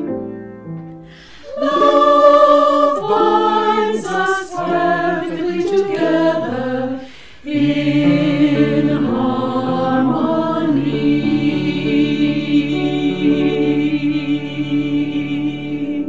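Small mixed choir of men's and women's voices singing in harmony, in short moving phrases, then holding a long final chord for about eight seconds.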